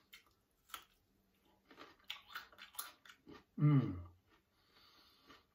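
Close-up mouth sounds of someone eating: chewing with wet clicks and smacks, then a loud hummed 'mmm' that falls in pitch about three and a half seconds in.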